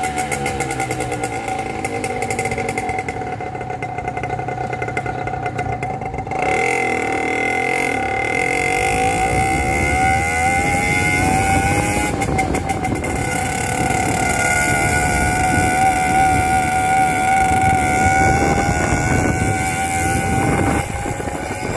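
Motorbike engine running while riding, a steady whine with a low rumble underneath; the pitch shifts about six to eight seconds in as the speed changes.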